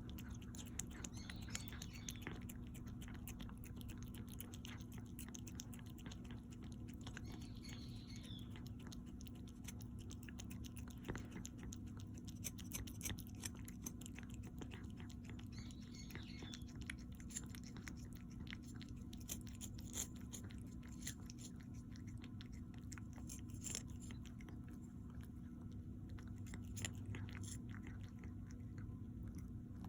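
Chewing and crunching: many small irregular clicks close to the microphone, over a steady low hum.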